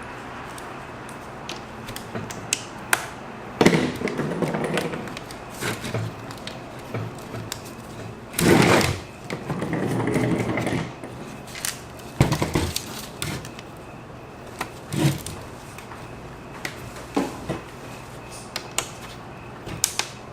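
Plastic parts of a Dell XPS L702X laptop being pried apart by hand and tool: irregular clicks, taps and knocks, with a few longer scrapes of plastic rubbing against plastic, as clips hold a stuck part in place.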